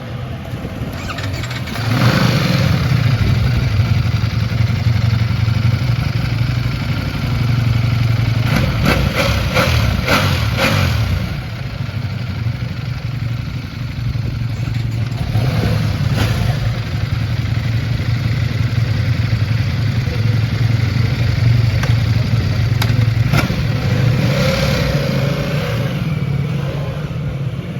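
Ducati Panigale V4 S motorcycle's 1103 cc V4 engine, fully stock, running with a steady low idle note that gets louder about two seconds in. Several short throttle blips come in the middle and near the end.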